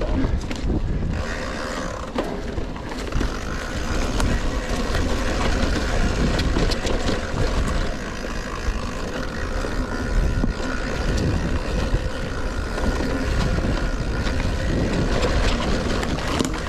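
Rockrider XC 900 mountain bike ridden fast along a forest singletrack: a steady deep rumble from the tyres on the trail, broken by many short rattles and clicks from the bike over the bumps.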